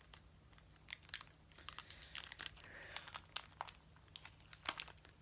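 Packaging of a Pokémon card box crinkling and crackling in irregular bursts as it is being pulled and worked open.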